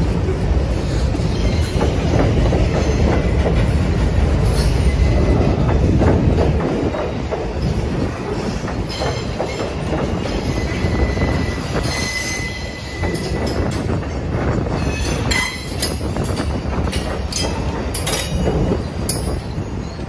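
Freight cars rolling close by over a steel girder railway bridge: a heavy, continuous rumble of wheels on rail, loudest in the first several seconds. A thin, steady wheel squeal runs for a couple of seconds about ten seconds in, and short sharp squeaks and clanks come in the last few seconds.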